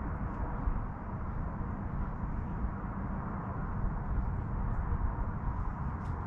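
Wind buffeting the microphone outdoors: a steady low rumble with a fainter hiss above it.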